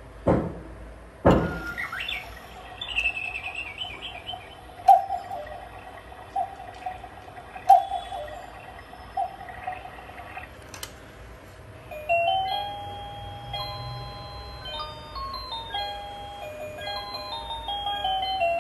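Black Forest cuckoo clock striking two o'clock. A couple of sharp clicks as the hands are set, then two cuckoo calls about five and eight seconds in. From about twelve seconds a music-box tune of plinking notes plays.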